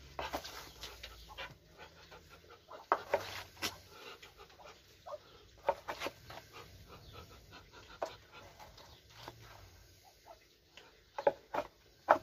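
A small scoop scraping and knocking leftover wet mash out of a poultry feed bowl, in short scattered scrapes and clicks.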